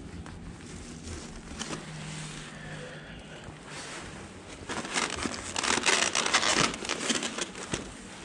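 A takeout food bag crinkling and rustling as it is handled, loudest for a couple of seconds about five seconds in.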